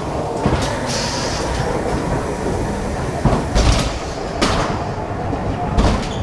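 Ghost-train ride car rattling and rumbling along its rail track, with several sharp knocks as it runs.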